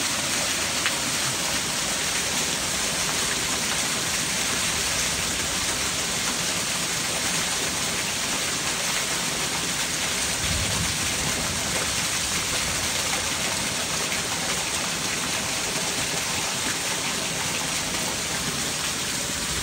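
Heavy rain pouring down steadily in a dense, even hiss.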